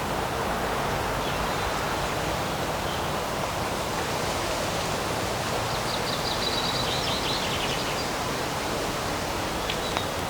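Steady rushing of a breeze through the trees, with a bird singing a short rapid trill about six seconds in.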